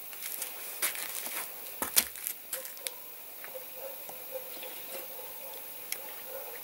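Snow crunching and crackling with scattered clicks and knocks around a pot of hot syrup set down in a snowbank. The loudest is a thump about two seconds in, and it quietens after about three seconds.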